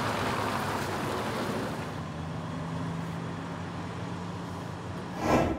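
Tractor-trailer diesel engine running as the rig drives off, a steady drone that slowly fades. Near the end a short, loud rush of noise, then the sound cuts off.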